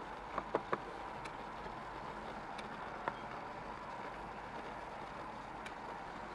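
Steady outdoor background noise with a faint hum, broken by a quick run of three sharp clicks about half a second in and one more click near the middle.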